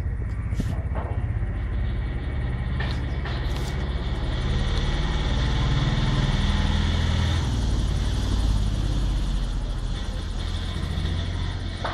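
A steady low engine rumble that swells to its loudest around the middle and eases off near the end.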